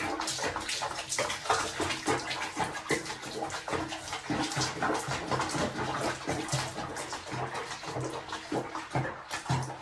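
Water splashing and sloshing in a basin of soapy water as a cat is bathed. The splashes come as a dense, irregular patter throughout.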